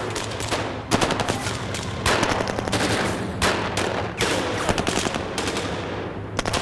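Rapid rifle gunfire from several weapons: overlapping bursts and single shots in quick succession, over a low steady hum.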